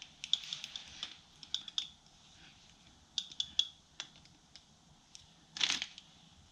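Small clicks and taps of tire plug kit tools and packaging being handled, with a louder rustle a little before the end.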